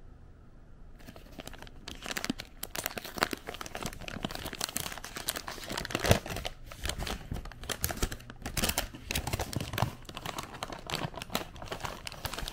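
White paper bag crinkling and rustling in the hands as it is opened and a hand reaches inside, a dense run of irregular crackles that starts about a second in.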